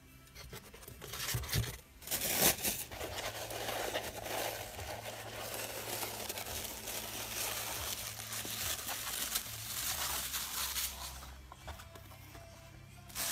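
Clear plastic wrapping crinkling and rustling as it is handled and pulled off small model parts, with a couple of louder crackles about two seconds in.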